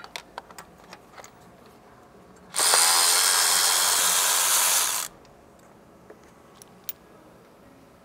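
A power tool running in one steady burst of about two and a half seconds, starting and stopping abruptly, with a few light clicks of tools and parts being handled before it.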